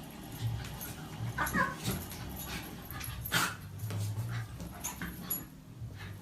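A dog whimpering, with a few short yelps.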